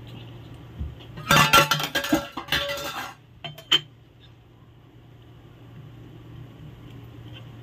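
Steel spoon clattering and scraping against a stainless-steel bowl as custard powder is stirred into water, in a dense run of clinks for about two seconds, followed by a couple of light taps. A steady low hum runs underneath.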